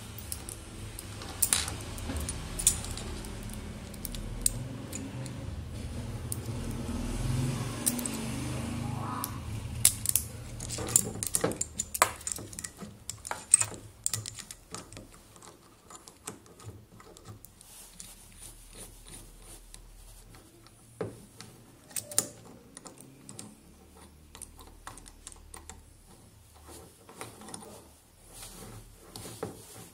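Metal clinks and clicks of a small bearing puller being handled and fitted onto an electric motor armature, its jaws and screw parts knocking together. A low rustling handling noise runs through the first ten seconds or so, and the clicks come thickest a little after that.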